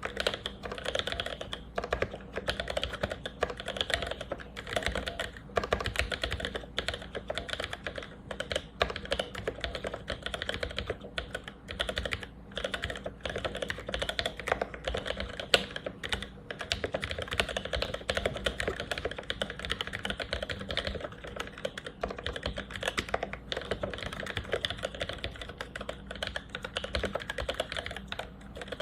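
Continuous fast typing on a mechanical keyboard with NOS vintage Cherry MX Black linear switches, lubed with Krytox 1514 and fitted with 63.5 g springs, under GMK keycaps: a steady stream of key clacks with occasional louder strokes.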